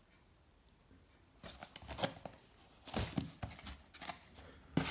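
A small cardboard box being handled and opened: quiet for the first second or so, then a run of short scrapes, rustles and taps of card against card and packaging.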